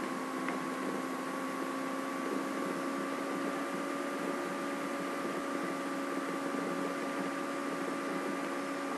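A steady electrical hum over a hiss, made of a few fixed tones that do not change.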